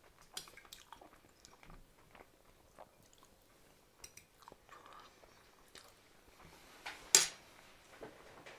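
Close chewing and small mouth noises of someone eating mashed potatoes and peas, with light taps of a fork against the plate. One sharp click about seven seconds in is the loudest sound.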